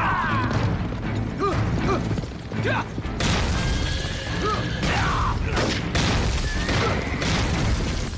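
Film battle soundtrack of a mounted charge: riders shouting 'jia, jia' to urge on their horses over hooves and explosions, with music underneath.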